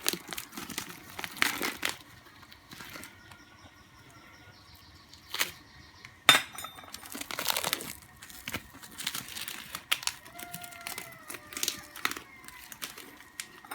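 Packaging crinkling and rustling in irregular bursts as a bow riser is unwrapped and handled, with a few sharp clicks, the loudest about six seconds in.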